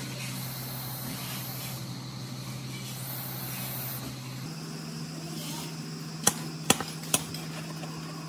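Three sharp metallic clicks close together, the rusty pipe wrench knocking on the steel diamond plate as it is picked up and handled, over a steady low hum.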